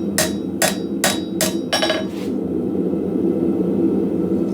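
Hand hammer striking the hot coil-spring steel on the anvil to straighten it: five quick ringing blows about 0.4 s apart in the first two seconds, then the hammering stops. A steady low rushing noise runs underneath.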